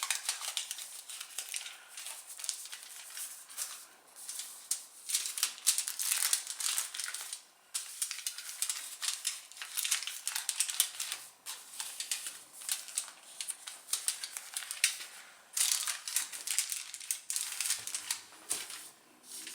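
Aluminium foil crinkling and crackling in irregular bursts as it is folded and pressed by hand, the corners of a foil boat being tucked in.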